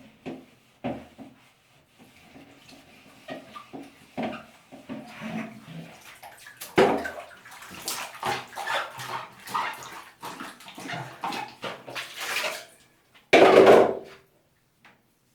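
Water splashing and sloshing in a washing tub as loose Lego bricks are handled. There are light scattered knocks at first, busier splashing from about halfway, and a brief loud gush of water near the end.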